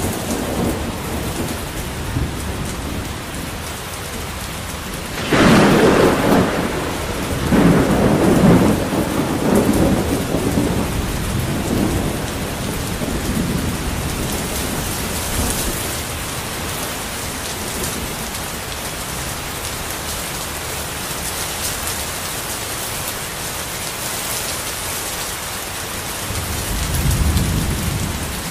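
Steady rain falling through a thunderstorm. About five seconds in comes a loud, sudden thunderclap that rolls on in several waves for some seconds, and a lower rumble of thunder swells near the end.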